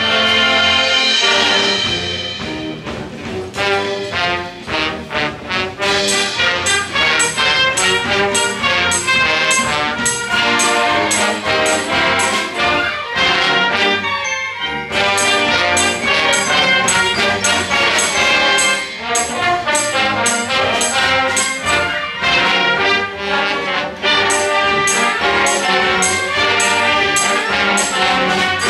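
Junior high school orchestra playing a medley of Disney film music, brass to the fore. A steady percussion beat comes in about six seconds in, and there is a brief break about halfway.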